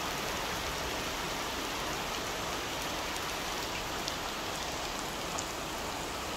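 Steady downpour of rain falling on trees, grass and ground, an even hiss, with a couple of sharp drop taps about four and five seconds in.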